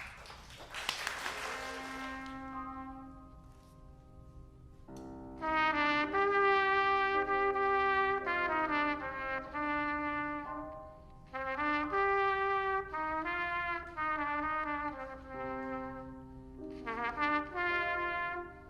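Brass instruments, trumpets among them, playing held notes and short phrases together, the phrases broken by brief pauses; a rushing noise comes before the first notes near the start.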